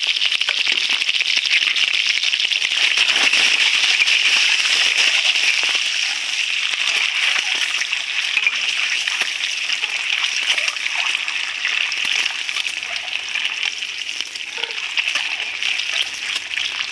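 Hard-boiled eggs frying in hot oil in a steel wok: a steady sizzle, loudest a few seconds in. A metal spatula turns the eggs in the pan.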